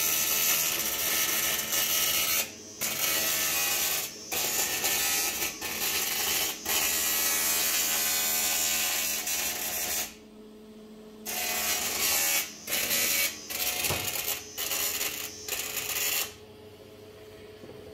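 TIG (argon) welding arc on an aluminium engine crankcase: a steady buzzing hiss while the arc is struck. It runs in long stretches with brief breaks at first, then in shorter starts and stops toward the end as the welder tacks and fills the holes.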